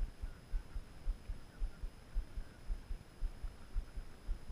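Dull low thumps about twice a second, a baitcasting reel being cranked during a lure retrieve.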